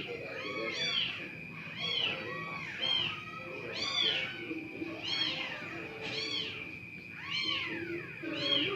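A cat mewing over and over, about one short mew a second, each rising then falling in pitch, with a steady high-pitched whine underneath.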